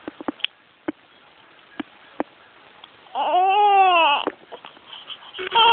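A baby crying out: one wail about a second long, rising then falling in pitch, about three seconds in, and a second cry starting near the end. A few soft clicks come before it.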